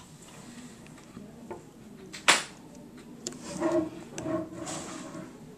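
Small clicks and taps of fingers and a tool on an iPhone 3GS's internals while trying to press a ribbon-cable connector back into its socket, with one sharp click a bit over two seconds in.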